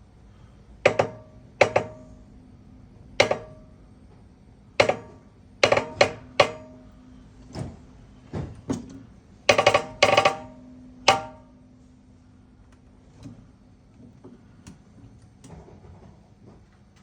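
Irregular sharp metal-on-metal knocks, each with a brief ringing tone, as steel pump parts are tapped and handled at the press. A quick cluster comes about ten seconds in, then they thin to faint ticks.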